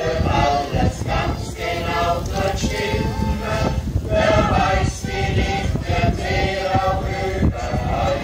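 A small group of voices singing a song together to accordion accompaniment.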